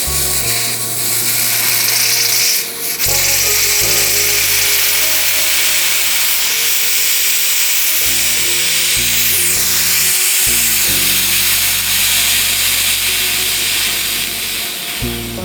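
Loud steady hissing over background music with a bass line; the hiss dips briefly a little under three seconds in.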